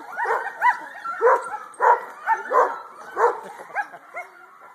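Several sled dogs yelping and barking together, short high calls overlapping at different pitches in a rapid run, dying down near the end.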